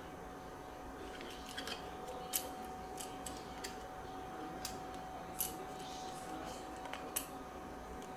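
About a dozen sharp, irregular clicks and small snips as a small hand tool works along the side of a plastic model airliner's fuselage, removing tape or packing from the model. A faint steady tone sits underneath.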